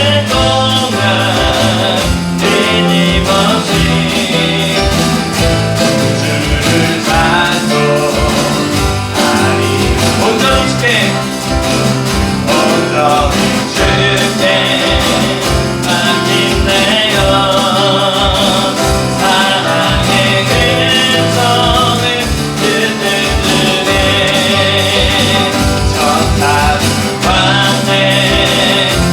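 Live worship band playing a hymn with a sung lead vocal over acoustic guitar, keyboard, bass guitar and electronic drums, at a steady beat.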